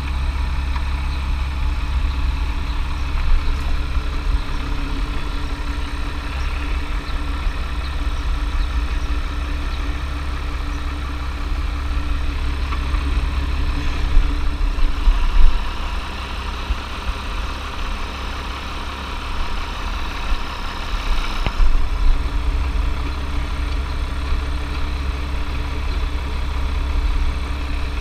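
An engine idling steadily with a deep rumble, with a few sharp metallic knocks from work at the wheel hub about halfway through and again later.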